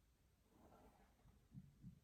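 Near silence with a sleeping dog's faint snoring: a soft breathy swell, then two short low pulses near the end.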